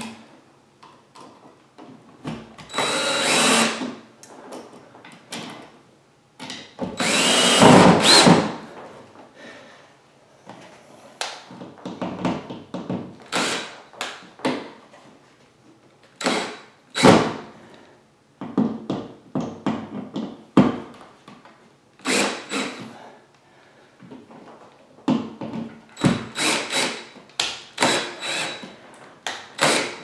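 Cordless DeWalt 20V drill/driver running in short bursts, driving the mounting screws of wall switches into an electrical box so they are mostly snug. There are two longer runs in the first eight or so seconds, the second rising in pitch, then many brief blips.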